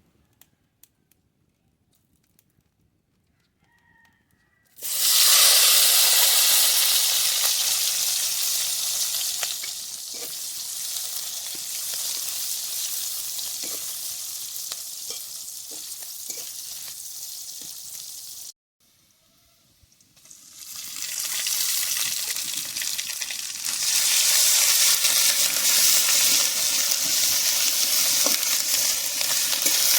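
Food sizzling in hot oil in a cooking pan. The sizzle starts suddenly and loud a few seconds in, as if ingredients have just gone into the oil, and slowly fades. It breaks off, then builds up again and stays loud.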